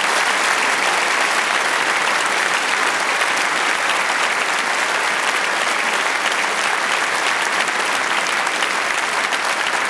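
A large theatre audience applauding, a dense and steady sound of many hands clapping.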